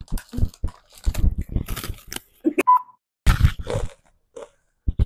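Close crunching and chewing of bites of chamoy pickle, coming in irregular clusters with short pauses between, and one brief high tone near the middle.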